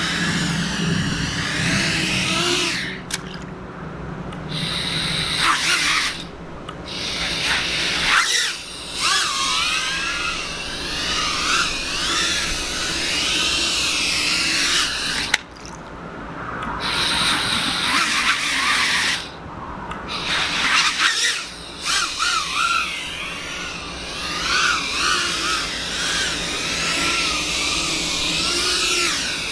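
Small 2-inch-prop FPV whoop drone's 1103 brushless motors whining in flight, the pitch swooping up and down and dropping out briefly several times.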